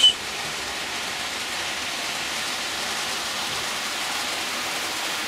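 Steady, even hiss with no other distinct sound.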